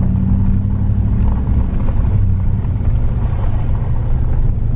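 A vehicle driving slowly over a bumpy road: a loud, steady low rumble of engine and tyres.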